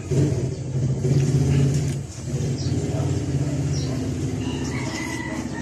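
A motor vehicle's engine running steadily with a low hum.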